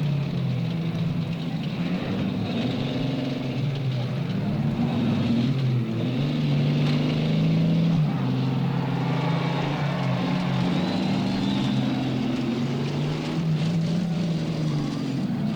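Several demolition-derby stock car engines running at once, their overlapping notes wavering up and down in pitch as the cars rev and move.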